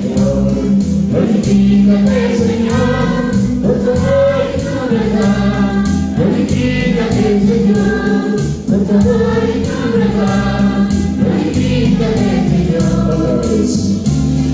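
Church choir singing a Spanish-language praise chorus in harmony over instrumental accompaniment with a steady beat.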